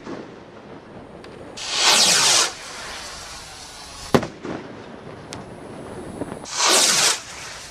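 Firework rockets from a Sky Explorer rocket set. One rocket launches with a rushing whoosh about a second and a half in and bursts with a single sharp bang about two seconds later, followed by a few faint crackles. A second rocket whooshes up near the end.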